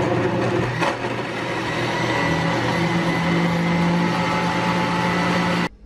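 Panasonic electric jug blender's motor running at full speed, blending papaya, milk, sugar and ice cream into a milkshake; it is switched off and stops abruptly near the end.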